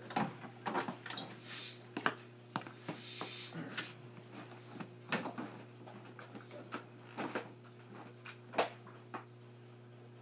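Interior of a JR Kyushu 817 series electric railcar: a steady low electrical hum with irregular knocks and clicks from the car body, and two short hisses about one and a half and three seconds in.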